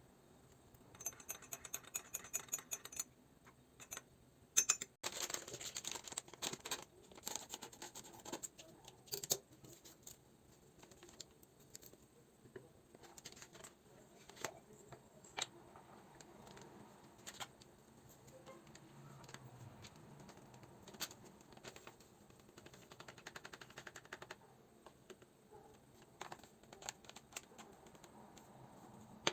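Quiet handling sounds: a rapid run of small ticks near the start, a sharp knock about five seconds in, then scattered clicks and scrapes.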